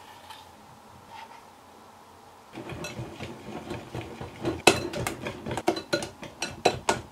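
A wire whisk beating chocolate batter in a glass bowl, its wires clicking and tapping rapidly against the glass. It is faint at first and the brisk whisking starts about two and a half seconds in.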